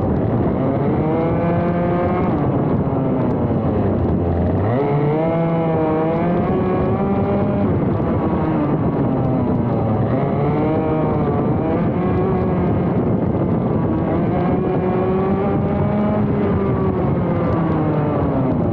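ROK GP Junior 125cc two-stroke kart engine running hard on track. Its pitch climbs under acceleration and drops when the kart slows for corners. The deepest dip comes about four and a half seconds in, followed by a quick climb back up, with another drop near the end.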